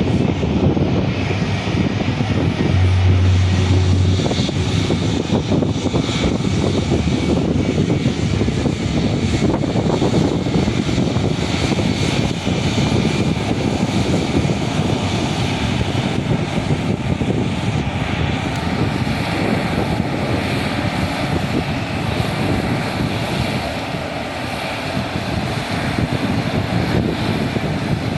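Jet airliner engines at takeoff power: a loud, steady, deep roar that eases slightly in loudness near the end.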